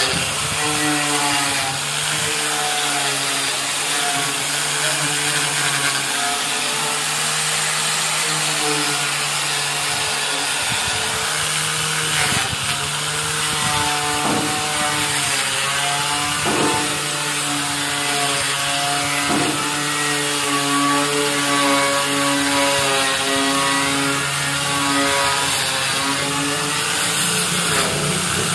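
Electric angle grinder running against the rusty steel frame of a tricycle sidecar, grinding off rust. Its motor hum wavers in pitch as the disc is pressed on and eased off, over a steady scraping hiss, with a few brief knocks in the middle.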